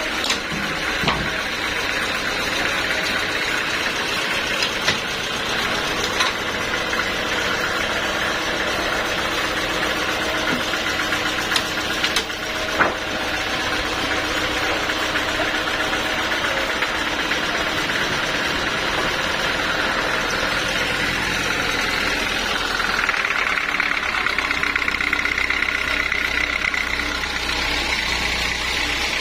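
Sawmill machinery running steadily, with a few sharp knocks in the first half. Near the end a higher, steady tone comes in and holds.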